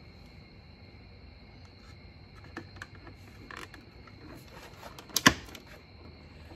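Light clicks and taps of a hard plastic fog light cover being handled and pressed onto a Range Rover Sport's front bumper, with two sharp clicks close together a little after five seconds in.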